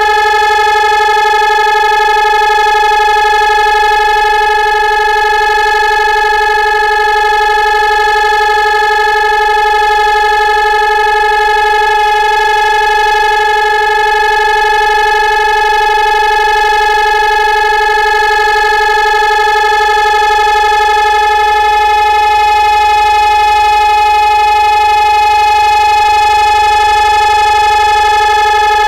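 Fire-station civil-defence siren sounding one loud, steady tone that holds the same pitch throughout, without rising or falling: the continuous all-clear signal of German civil defence.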